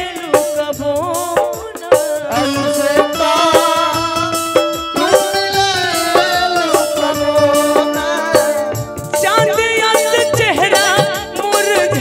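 Bhojpuri folk music: a gliding melodic lead over a steady drum beat.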